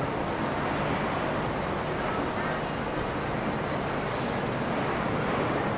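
Steady rush of water with the low running of boat engines, and wind buffeting the microphone.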